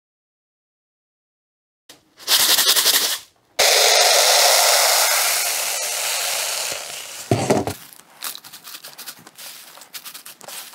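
Silica gel beads poured from a plastic jug into a clear plastic bowl: a short burst, then a longer pour, a dense rattling hiss of grains that thins out over a few seconds. After a thump comes light crackling of dry autumn leaves being laid into the bowl.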